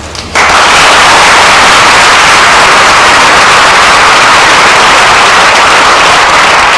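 Loud applause from a large audience: dense, steady clapping that starts suddenly about half a second in and eases slightly near the end.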